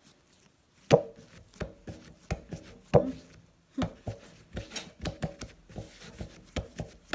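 A series of sharp knocks on a wooden kitchen board, the two loudest about one and three seconds in, then lighter knocks coming about twice a second.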